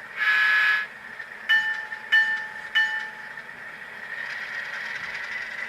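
Tsunami sound decoder in an HO-scale Alco diesel model, heard through its small speaker. It plays one short blast of several tones together, then three shorter single-pitched toots about two-thirds of a second apart, over a steady high whine.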